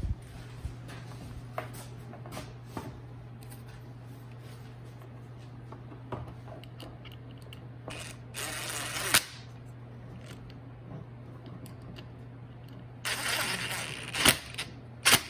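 Hand work on hoses and fittings: scattered clicks and knocks of tools and parts being handled over a steady low hum, with a louder hissy rasp of about a second roughly eight seconds in and again twice near the end.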